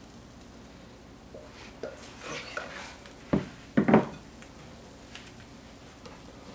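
Kitchen clatter: a few light clicks and scrapes, then a sharp knock and a louder clatter about three and a half seconds in, as the batter bowl and utensils are handled and set down beside the griddle.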